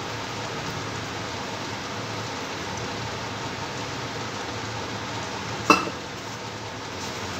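Steady hiss with a faint low hum throughout, and one sharp click about two-thirds of the way in.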